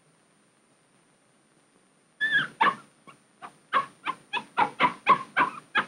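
Puppy yipping: a quick run of about a dozen short, high yips, roughly three a second, starting a little over two seconds in.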